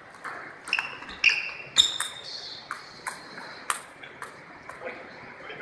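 Table tennis doubles rally: the ball pocks sharply off paddles and table in quick alternation, about a dozen hits over the first four seconds, the loudest around two seconds in. After the point ends, a few fainter taps follow.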